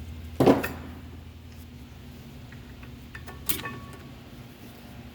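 Two metal knocks from tools or brake parts being handled, about three seconds apart, over a steady low hum. The first is the louder; the second rings briefly with a metallic tone.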